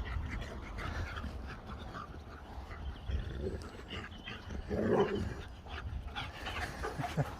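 Dog giving a short whine about five seconds in, among quieter small wet mouth sounds as it licks at a pot of cream, over a low steady rumble.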